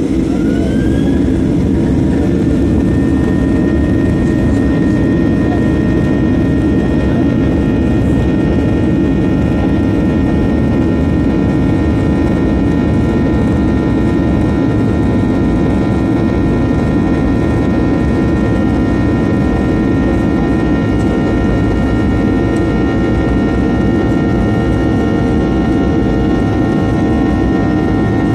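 Boeing 737's twin jet engines at takeoff thrust, heard from inside the cabin during the takeoff roll. A rising whine in the first two seconds as the engines spool up settles into several steady whining tones over a loud, steady rumble as the plane accelerates down the runway.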